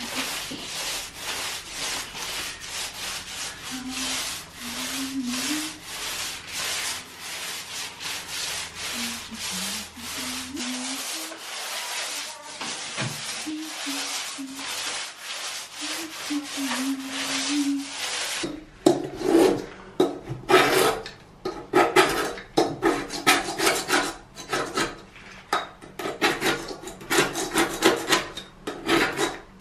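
Paint roller rolling emulsion onto a plastered wall in quick, even repeated strokes. About two-thirds of the way in this gives way to a metal scraper scraping flaking old paint off a window sill in louder, irregular strokes.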